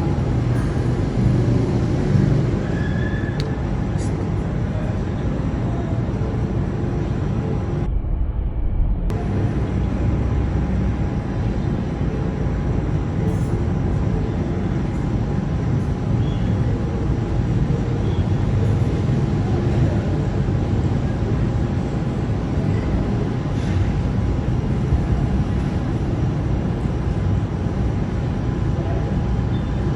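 Night thunderstorm ambience: a dense, steady low rumble with a faint steady hum above it and no distinct thunderclap.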